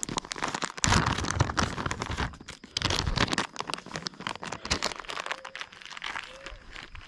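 Crinkling and rustling of a plastic bag of soft-plastic jig trailers being handled, in dense crackly bursts that are loudest in the first half and quieter toward the end.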